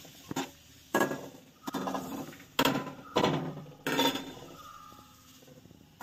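A series of sharp knocks and clatters of kitchen dishes being handled, about five in a few seconds, each dying away quickly.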